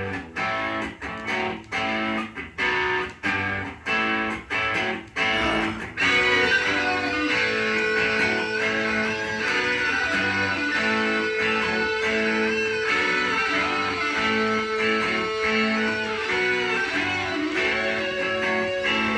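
Rock music with electric guitars played from a vinyl record. It opens with about six short chord stabs separated by brief gaps, then the full band plays on steadily from about six seconds in.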